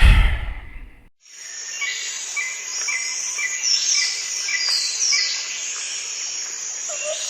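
A loud sudden hit that dies away within about a second, then outdoor night-style ambience: crickets and birds chirping, with short chirps repeating evenly about twice a second over a steady hiss.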